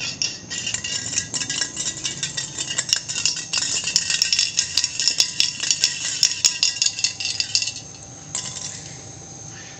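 Dense crackling and crinkling of a small white packet as a long-tailed macaque picks at it. The crackling stops about eight seconds in and comes back briefly near the end, over a steady high insect drone.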